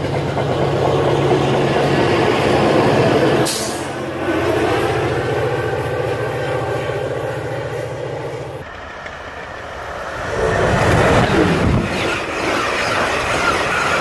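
Passenger trains passing close at speed. MBTA bilevel commuter coaches rumble by over the rails with a steady low drone. Near the end, after a short lull, an Amtrak train's stainless-steel coaches rush past.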